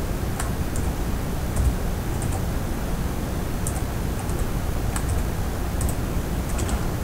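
Computer keyboard typing: short, irregular keystrokes in small bursts. Under them runs a steady low background noise.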